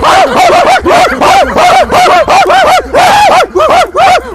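A man imitating a dog, barking in a rapid run of short, arched yaps, about four a second.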